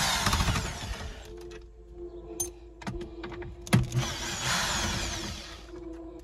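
Hard plastic scraping and rustling as a car's factory radio unit is worked out of the dash and its wiring handled, in two spells, with a few sharp knocks and clicks between them.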